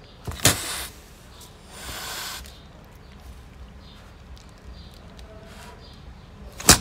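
Mother cat hissing and spitting: a sharp spit about half a second in, a longer hiss around two seconds, and another sharp spit near the end. It is a defensive warning to keep people away from her kittens.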